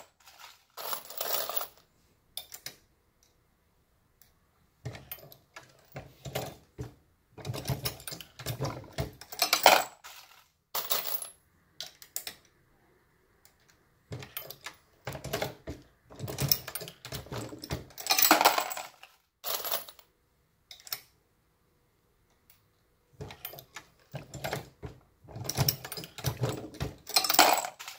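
Dillon RL550B progressive reloading press being cycled while loading .223 ammunition. Sharp metallic clicks and clinks of the press and brass cases come in several runs, with short pauses between them.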